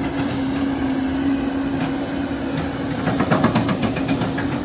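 Diesel excavator and dump truck running with a steady engine hum, with a rattle of metallic clanking about three seconds in.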